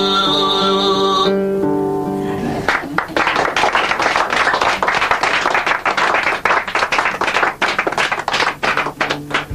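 A boy's singing voice ends a Mongolian song on a long held note, then a small group claps for about seven seconds, the clapping thinning out near the end.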